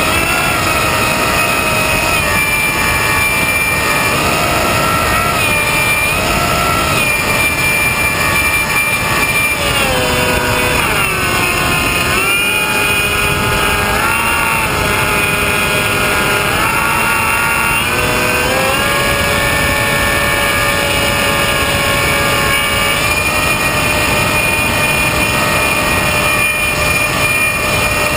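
Model airplane's motor and propeller whine, heard from on board with wind rush over the airframe. The motor's pitch drops about ten seconds in, wavers, then climbs back and holds steady from about eighteen seconds in as the throttle changes.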